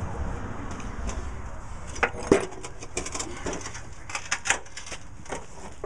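Steel mower deck of a 1968 Sears 10 XL tractor being tipped up onto its edge on concrete: a string of clanks and scrapes, the loudest about two seconds in.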